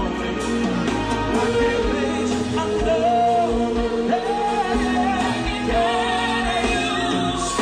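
Slow R&B ballad played by a band, with a lead melody line in long held notes over the accompaniment.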